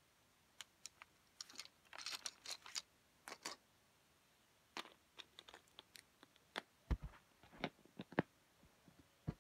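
Handling noise from hands on the phone and toys: scattered small clicks and taps, a burst of rustling about two seconds in, and a couple of duller knocks later on.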